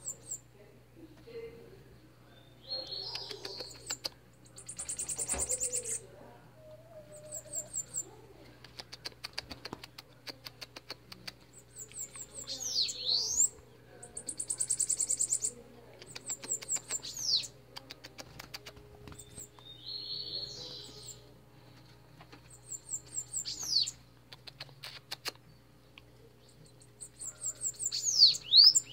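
Bananaquits singing: high, rapid, buzzy trills about a second long, repeated every few seconds, with sharp sweeping notes and scattered clicks between.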